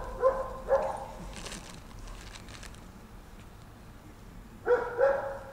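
Dog barking: three short barks in quick succession, then a pause, then two more barks near the end.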